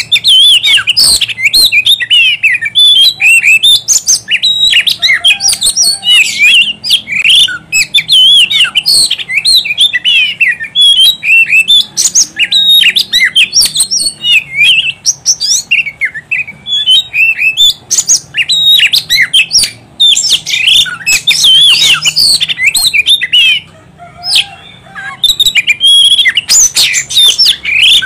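Oriental magpie-robin singing loudly, an almost unbroken run of fast, varied phrases that slide up and down in pitch, with one short lull late on.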